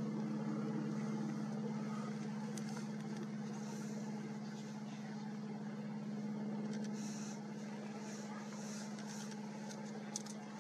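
An engine idling: a steady low hum that holds unchanged, under faint hiss, with one small click near the end.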